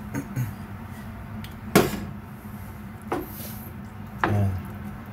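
Wooden spatula stirring chunks of meat in liquid in a non-stick frying pan, scraping and knocking against the pan in a few sharp strokes, the loudest just under two seconds in. A steady low hum runs underneath.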